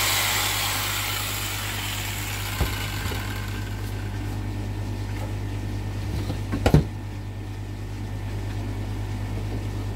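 Electric jigsaw cutting through timber shed cladding, its cutting noise dying away over the first few seconds as the blade snaps and jams in the wood. A low steady hum remains, with a couple of single knocks and then a louder cluster of knocks about two-thirds of the way through.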